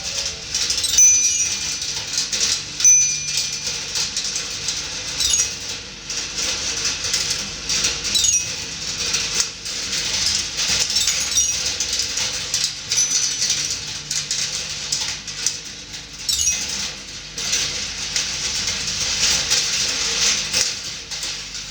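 Glass marbles rolling and clattering continuously along the copper wire, copper plate and copper tube tracks of a hand-made rolling ball sculpture, with many small clicks of marbles dropping and catching. A single ringing metal note sounds twice in the first few seconds and once more faintly later.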